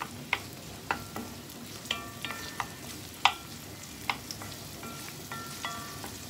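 Garlic and onion sautéing in oil in a pan, a steady sizzle, while a wooden spatula stirs them and knocks irregularly against the pan, each knock ringing the pan briefly; the loudest knock comes a little past the middle.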